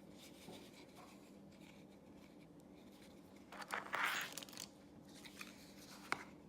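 Stanley knife blade scoring along the sealed plastic seam of a car key fob casing: one scraping cut of about a second, about three and a half seconds in, followed by a few small clicks. Faint room hum before it.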